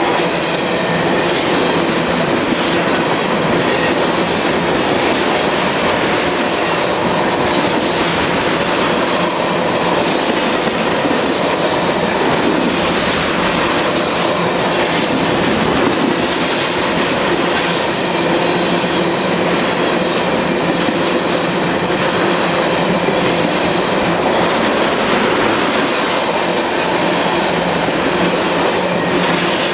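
CSX freight train's cars rolling past close by: a loud, steady rumble with the wheels clicking over the rail joints.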